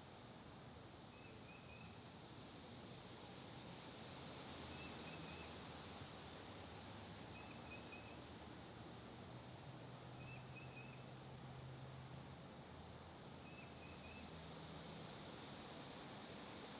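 Faint outdoor ambience: a steady high-pitched hiss, with five brief chirps a few seconds apart.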